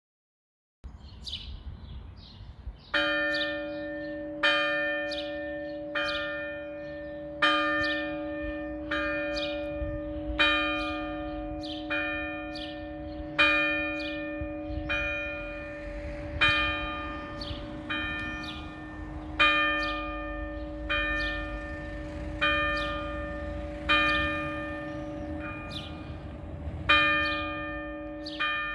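Fixed-hung church bell tuned to E-flat (es''), cast by the Oberascher foundry in Salzburg in 1962, struck by a hammer mechanism about once every second and a half, starting about three seconds in. Each stroke rings on under the next.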